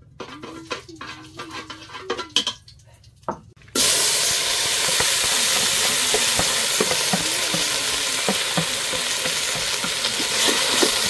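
Leafy greens sizzling loudly in a hot pot over a wood fire as they are stir-fried, with small clicks of the stirring utensil against the pot. The sizzle starts abruptly about four seconds in, after a few light knocks and clinks of bowl and pot.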